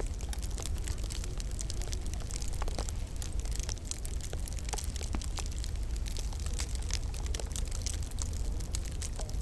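Wood fire in a log burner crackling: many small, irregular pops and snaps over a steady low rumble.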